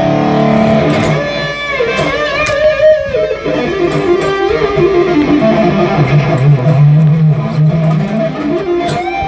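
Electric guitar, an EVH Wolfgang Standard, played as a lead line: held notes with vibrato and quick runs, then a low held note about six seconds in.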